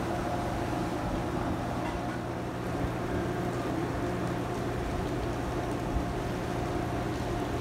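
A steady low mechanical hum, as from an engine or motor running, over a constant wash of sea and wind noise.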